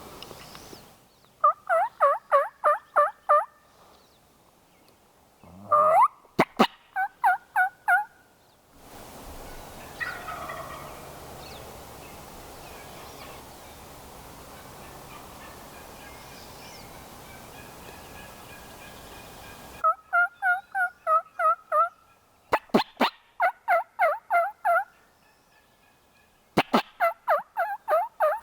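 Wild turkey toms gobbling, about five gobbles in quick rapid-fire runs of notes, each lasting a second or two, with a quieter stretch of outdoor background between the second and third.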